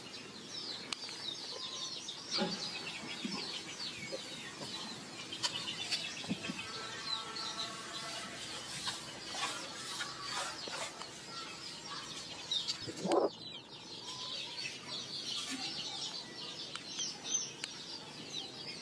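Birds chirping steadily in the background. A longer pitched call comes about six seconds in, and a louder sweeping call about thirteen seconds in.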